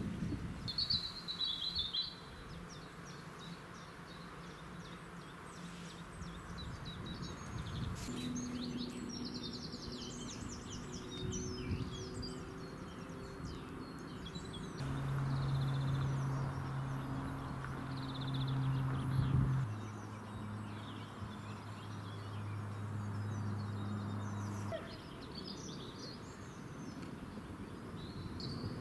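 Steam hissing from BR Standard Class 4 tank locomotive 80080, cutting off about two seconds in. After that, birds chirp and sing over a steady low engine hum, which shifts in pitch twice.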